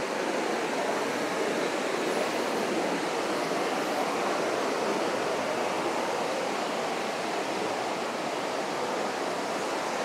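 Steady rush of a burn's white water tumbling over rocky cascades and small waterfalls.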